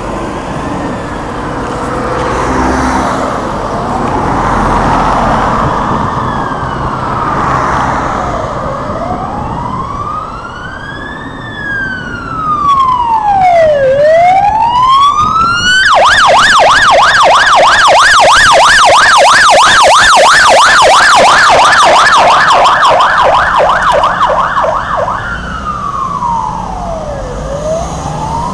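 British police car siren on an emergency call: a slow rising-and-falling wail that switches about halfway through to a fast yelp, loudest during the yelp, then goes back to the wail near the end.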